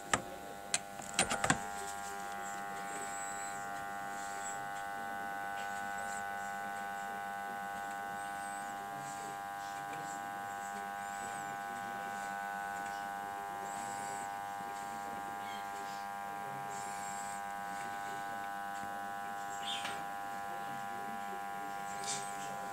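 Arçelik 4440 dishwasher's circulation pump motor buzzing steadily after a few clicks in the first second and a half. This buzz is the fault that replacing the circulation motor cured.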